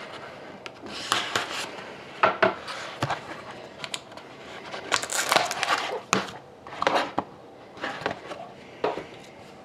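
Hockey card box being opened and handled: irregular cardboard and plastic rustles with light clicks and taps.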